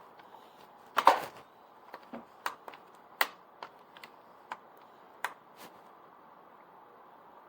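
Irregular sharp clicks and knocks of a vacuum cleaner being handled and switched, with no motor starting. The machine fails to power on. The loudest knock comes about a second in, and about ten more follow over the next few seconds.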